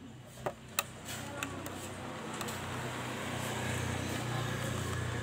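Thick paint being peeled by hand off a motorcycle's plastic body panel, with a couple of small cracks about half a second in. A low rumble builds up from about a second in and is the loudest sound in the second half.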